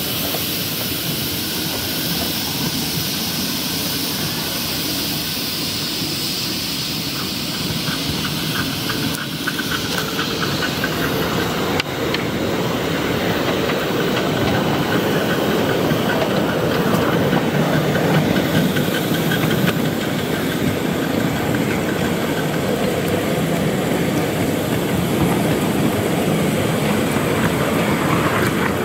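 A 5-inch gauge Simplex 0-6-0 miniature steam locomotive running along the track with its driver aboard: steam hissing and wheels running on the rails, a little louder from about ten seconds in, with one sharp click near the middle.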